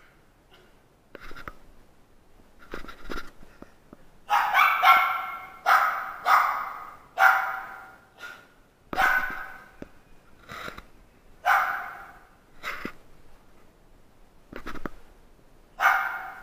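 Small dog barking repeatedly in sharp, high barks, roughly one a second. The barks start faint and become loud from about four seconds in.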